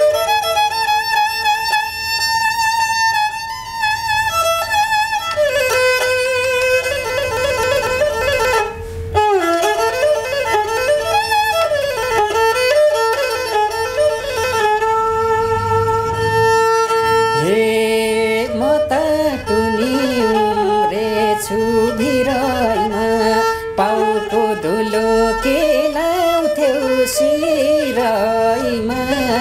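A handmade Nepali sarangi of khamari wood is bowed, playing a folk melody over a held drone note. About two-thirds of the way through, a man's voice begins singing along with the sarangi.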